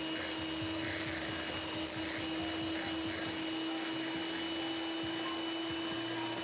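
Electric hand mixer running steadily, its beaters whisking egg whites in a glass bowl to beat them into stiff foam. It gives an even whir with a constant hum.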